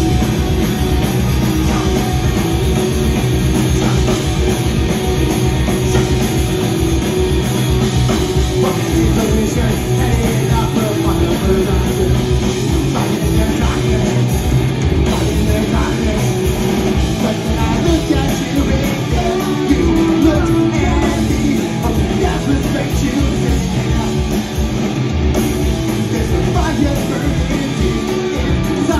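Punk rock band playing live: a lead singer shouting into the microphone over electric guitar, bass guitar and a drum kit, with the drums hitting hard and fast.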